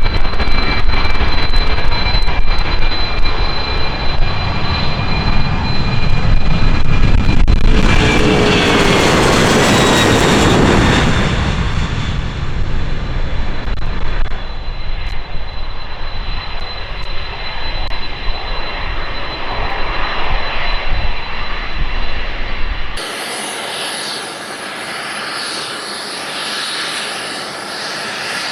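Jet airliner engines at high power passing close by: a loud roar with a steady high whine that swells to a peak about ten seconds in, where a falling whine marks the pass, then fades away. About 23 seconds in the sound cuts off abruptly to a quieter, thinner jet whine.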